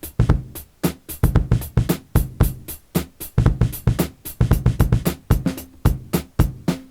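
Drum-machine beat played on Native Instruments Maschine: a busy pattern of sharp electronic drum hits over pitched bass notes, stopping suddenly near the end.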